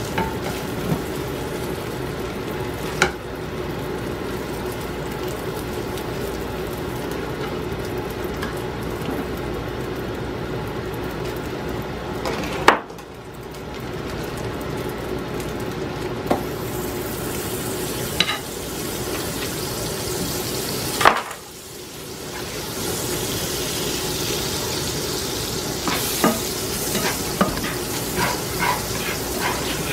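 Pancakes sizzling in a nonstick frying pan, with a plastic spatula scraping and tapping against the pan. The sizzle grows brighter in the second half as butter melts in the pan. A few sharp knocks come through, the loudest about 13 and 21 seconds in, and a run of small taps comes near the end.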